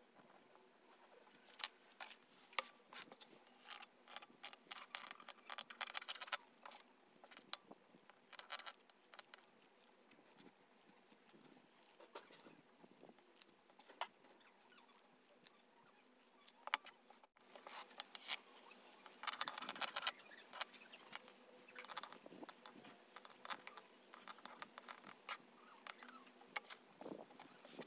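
Scissors cutting through cloth: faint clusters of crisp snips and short scraping slides of the blades, with quiet gaps between.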